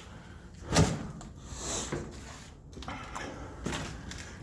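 Footsteps and scuffing on a littered floor, with a sharp knock just under a second in and a few lighter clicks later.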